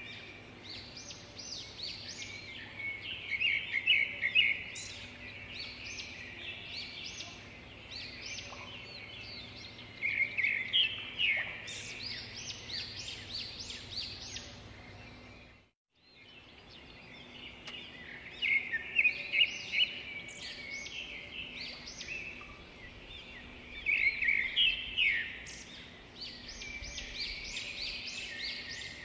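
Small birds chirping in repeated clusters of quick, high calls, with a brief cut to silence about halfway through.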